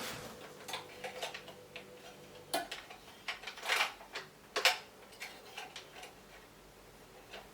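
Hard plastic parts of a toy gel blaster kit being handled: irregular clicks and clatter, with a short scraping rustle around three and a half seconds in and a sharper knock about a second later.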